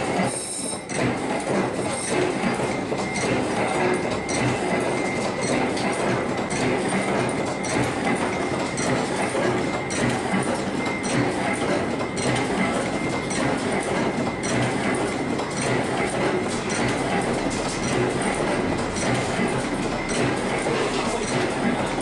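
Factory machinery running with a dense, continuous clatter of small knocks over a faint steady high whine.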